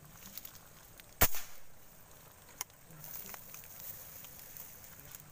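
A homemade PVC air gun (tiksay) fires once, a sharp pop about a second in, followed by a fainter click a little later over quiet outdoor background.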